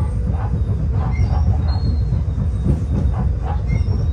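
Cabin running noise of a Fukui Railway F1000 low-floor tram at speed: a steady low rumble of wheels on rail.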